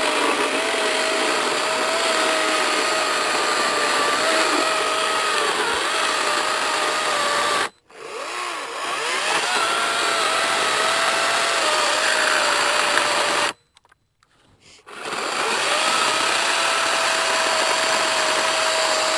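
Echo DCS-5000 56V battery chainsaw's electric motor whining at a steady pitch as the chain cuts through a log, the pitch wavering slightly under load. It cuts off abruptly about eight seconds in and spins straight back up, then stops again for a second or two and winds back up. These are its last cuts on a nearly flat battery.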